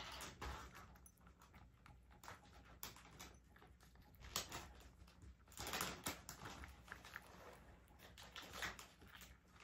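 A cat eating dry kibble and wet food from a ceramic bowl: soft, irregular chewing and crunching.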